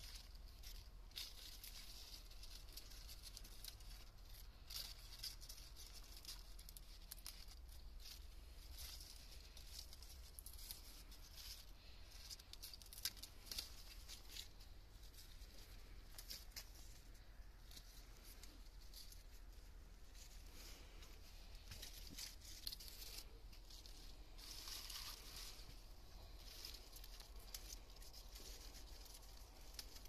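Faint, irregular rustling and crackling of lettuce leaves being snapped off and handled.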